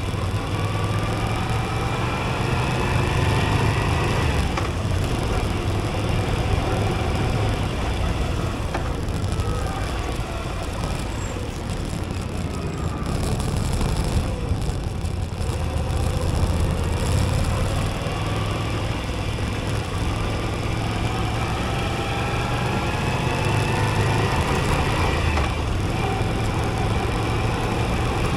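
Moto Guzzi V85TT's air-cooled transverse V-twin engine running on the road, its pitch rising and falling several times as the rider changes speed.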